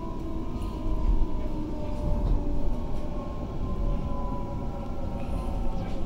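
Inside a Waratah A set electric train slowing into a station: a steady rumble of wheels on rail, with the traction motors' whine gliding slowly down in pitch.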